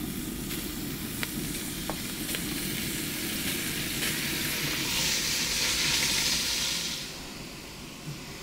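Minced beef frying in hot oil in a cast-iron Dutch oven: a steady sizzle that swells to a louder hiss about five seconds in and eases near the end. A few light knocks in the first two seconds as the mince is scraped in with a wooden spatula.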